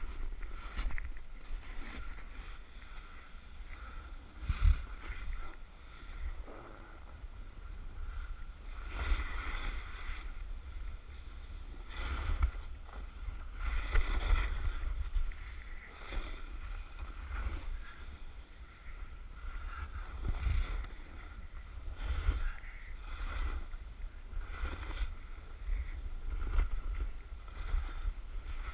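Snowboard edge scraping over moguls in a run of quick turns, one swell of hiss every one to two seconds, with a steady low wind rumble on the helmet camera's microphone. There is one thump about five seconds in as the board hits a bump.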